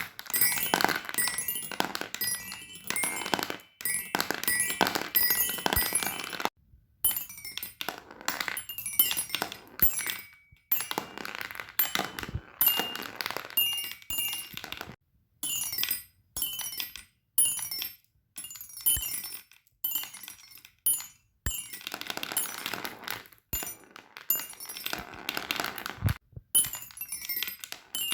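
Hard fidget-toy pieces rattling, clicking and clinking in quick clusters, some with a short bright ring, in stretches broken by abrupt silent breaks.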